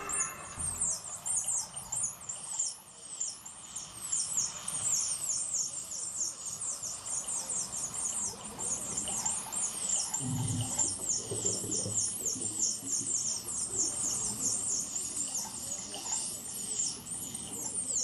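Dolphins whistling and chirping: a dense, continuous chatter of quick high-pitched calls that glide downward, several a second, with a faint low rumble about ten seconds in.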